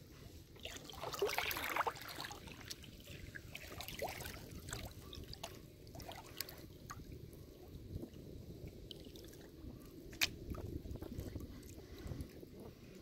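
Water splashing and trickling around a kayak, with a louder splash about a second in and scattered small drips and ticks.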